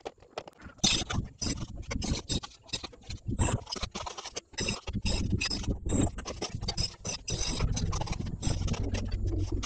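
Irregular knocks, taps and scrapes of a hammer working at a freshly core-drilled hole in a concrete wall, breaking out the concrete and debris.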